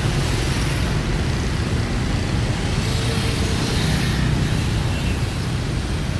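Road traffic on a busy city street: motorbikes and a truck passing, a steady rush of engines and tyres, with a low engine hum standing out about four seconds in.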